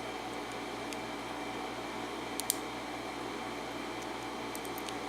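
Faint small clicks of pin tumblers and springs coming out of a Master Lock No. 27 padlock's cylinder as it is taken apart without a follower. There are two clicks about halfway through and a few more near the end, over a steady background hum.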